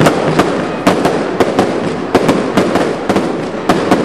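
Aerial fireworks shells bursting in quick succession, with sharp bangs about three times a second over a continuous crackle.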